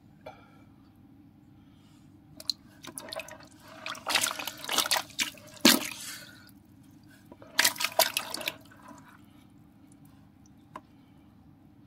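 Water splashing and sloshing in a shallow tub as a hand dips in among the fish and catches one, in two bouts: a longer one from about two to six and a half seconds in and a short one about a second later.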